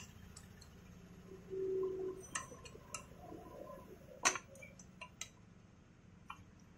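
Scattered light metallic clicks and ticks from a keyed drill chuck being tightened around a thread tap with its chuck key and turned by hand, the sharpest click a little past four seconds in. A brief faint hum sounds at about one and a half to two seconds.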